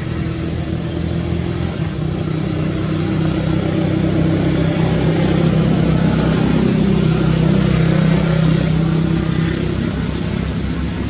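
A running engine's steady hum, growing a little louder midway and easing off again near the end.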